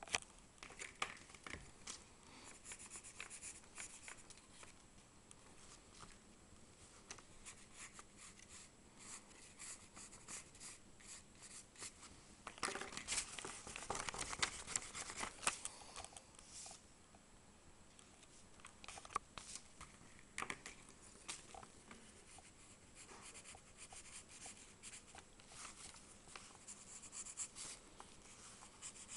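Graphite pencil shading on drawing paper: faint, quick scratchy strokes, with a louder stretch of scratching and rubbing about halfway through.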